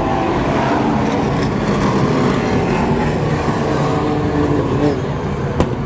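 Pack of Outlaw Super Late Model race cars' V8 engines running hard as the field races by on the oval, the engine notes rising and falling as the cars pass. A sharp click is heard near the end.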